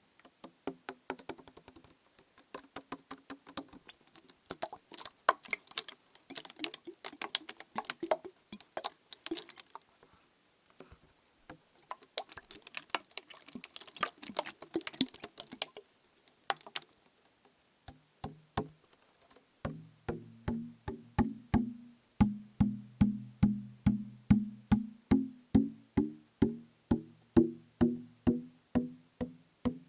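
Plastic bottle partly filled with liquid, first shaken so the liquid sloshes amid a scatter of irregular clicks, then in the last third tapped in a steady rhythm of about two to three hollow, ringing knocks a second.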